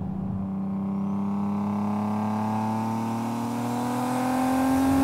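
Single-turbo 1991 Acura NSX's V6 engine accelerating in one long, steady pull. Its pitch rises gradually throughout and it grows a little louder near the end.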